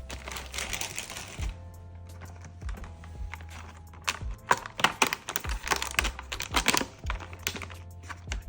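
Soft background music. A hiss runs over the first second and a half, then a quick run of sharp taps and clicks in the middle, the loudest sounds here.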